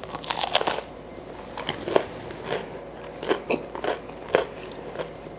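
A bite into crusty, broiled garlic bread with a crunch in the first half second, then crunchy chewing in short scattered bursts.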